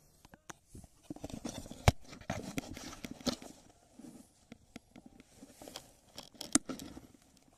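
Mountain bike rolling over a rough dirt singletrack: irregular crunching from the tyres and rattling clicks from the bike over bumps, with grass and brush brushing past. Two sharp knocks stand out, about two seconds in and about a second before the end.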